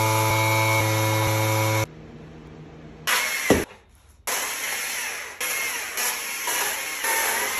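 Power carving tools on wood in quick cuts: a motor running at a steady pitch, then a chainsaw cutting into a log in a short loud burst with a falling pitch, then a steady rough grinding as wood is sanded and shaped with an angle grinder.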